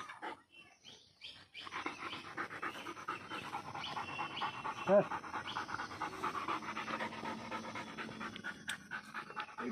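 Pitbull panting hard in quick, even breaths while it bites and worries a lizard on the ground, with one short sharp cry about halfway through.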